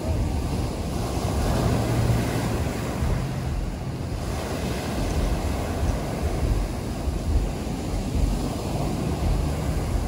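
Sea waves breaking and washing up onto a pebble beach in a steady surf noise, with wind rumbling on the microphone.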